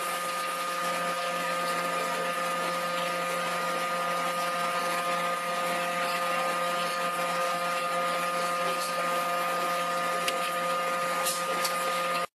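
Steady hum and hiss of running factory machinery, several constant tones over a broad rush of noise, cutting off abruptly near the end.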